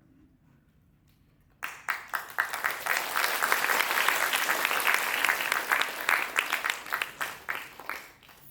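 An audience applauding. The clapping starts suddenly about one and a half seconds in, builds to a full, dense round and tapers off near the end.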